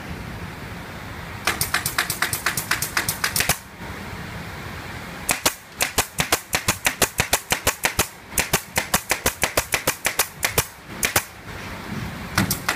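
Pneumatic fastening gun firing in rapid runs of sharp shots, about eight a second, with short pauses between runs over a steady air hiss.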